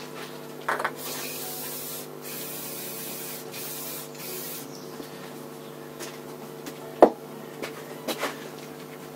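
Aerosol spray can hissing in three short bursts, then a single sharp knock a couple of seconds later.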